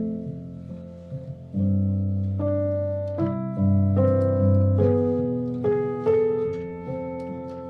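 Soft background music led by piano or electric piano: gentle chords and a slow melody over a deep sustained bass, each note struck and fading away.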